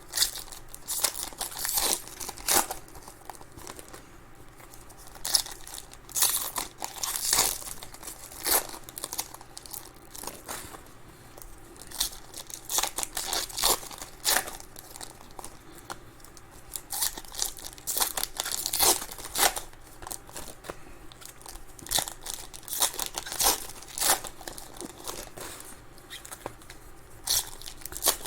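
Trading card pack wrappers being torn open and crinkled by hand: a string of irregular rips and crackling rustles.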